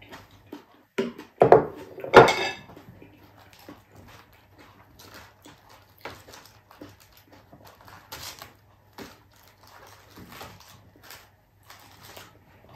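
A person eating close to the microphone: chewing and mouth noises, lettuce leaves crackling as they are handled, and light clinks of chopsticks and tableware. Two louder sounds come about two seconds in.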